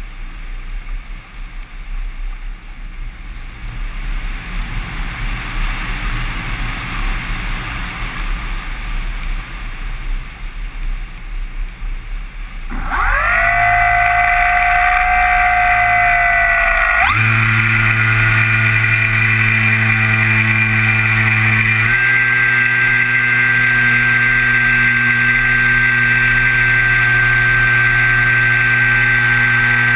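Air rushing past the model glider while it glides with its propeller folded. About 13 seconds in the nose motor starts and the folding propeller spins up into a loud steady whine, which changes pitch twice, at about 17 and 22 seconds in, as the throttle is changed.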